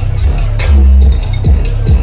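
Bass-heavy electronic dance music from a DJ set: a steady kick-drum beat with hi-hats over deep, held sub-bass notes.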